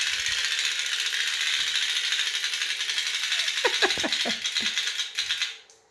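Wind-up chattering-teeth toy running on a tile floor: a fast, steady clicking rattle from its clockwork that stops about five and a half seconds in.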